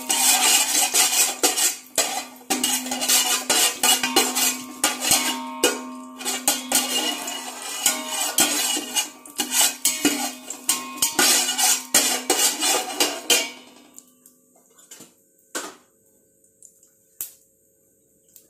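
Perforated metal skimmer ladle scraping and clattering against the inside of a large metal pot in quick stirring strokes, sautéing fennel seeds in ghee. The stirring stops after about thirteen seconds, leaving a few light taps near the end.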